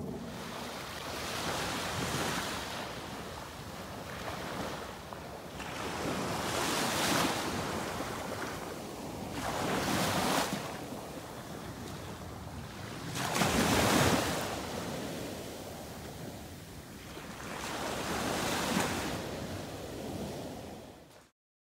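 Small waves washing up on a sandy beach, the surf swelling and falling about five times, every three to four seconds, then cutting off suddenly near the end.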